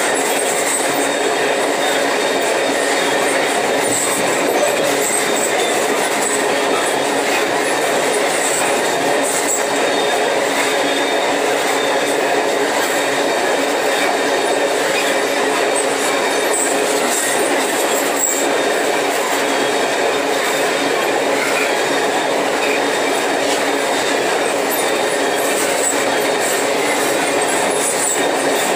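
Iron-ore hopper wagons of a freight train rolling past close by: steel wheels running on the rails with a steady rumble and rattle, and a faint high wheel squeal over it.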